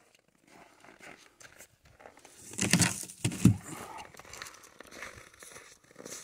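Footsteps crunching in snow, irregular, with two heavier steps about halfway through and lighter crunches and rustling around them.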